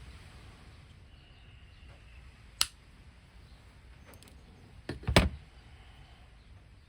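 Sharp clicks of small tools and hard plastic toy parts being handled on a workbench: a single click about two and a half seconds in, and a louder cluster of clicks about five seconds in.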